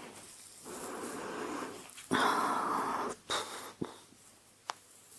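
Breathy, rustling noise close to the microphone, loudest for about a second from two seconds in, followed by a few small clicks.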